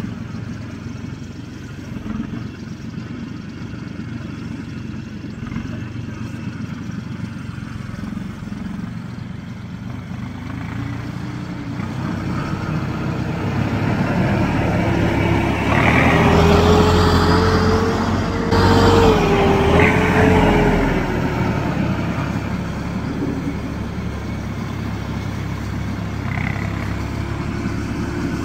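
A vehicle engine running steadily, growing louder through the middle with a whine that rises and dips, then easing back to a steady run.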